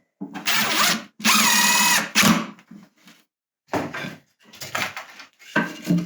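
Power drill driving screws into wooden floor boards, running in several short bursts, the longest about a second and a half in with a steady motor whine.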